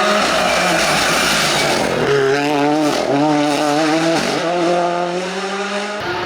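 Ford Fiesta R5 rally car's engine at high revs. Its pitch drops about two seconds in, the revs rise and fall rapidly for a couple of seconds, then hold steady again.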